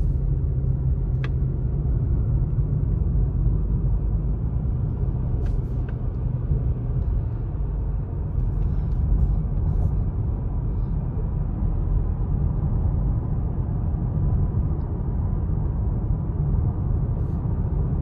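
Steady road and engine noise of a car cruising at speed, heard from inside the cabin as a low, even rumble.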